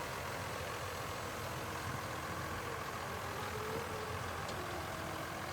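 Farm tractor engine running steadily: a low rumble with a faint steady whine above it.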